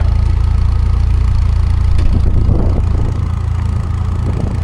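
Forklift engine idling steadily with a low hum, a little quieter from about three seconds in; it stalls shortly afterwards.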